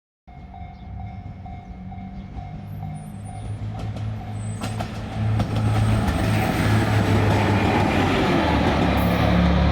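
Diesel railcar engines running at the platform, a low steady drone that grows louder about five seconds in. A faint pulsing tone sounds over it in the first few seconds.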